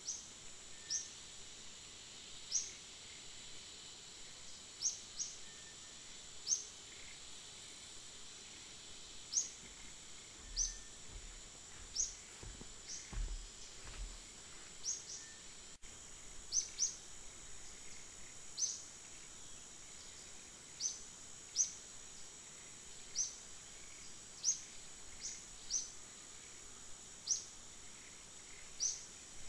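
Outdoor nature ambience: a steady high insect drone, with short high bird chirps repeating every second or two. A few soft low thumps come about halfway through.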